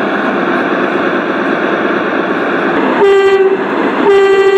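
Sound module of a large-scale model Deutsche Reichsbahn class 110 diesel locomotive sounding its horn: a short blast about three seconds in, then a longer one a second later, over the chatter of a busy exhibition hall.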